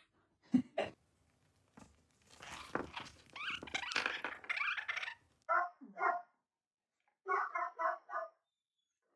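Short bark-like calls: a harsh, rasping stretch, then two barks and a quick run of about five barks near the end.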